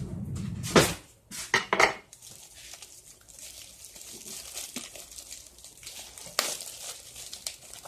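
Kitchen utensils and dishes clattering: a knife and dishes knocking against each other, with a few sharp clinks about a second in and one more near the end.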